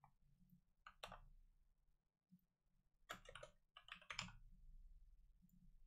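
Faint computer-keyboard typing: a few short key clicks about a second in, then a quick cluster of clicks around three to four and a half seconds in, with near silence between.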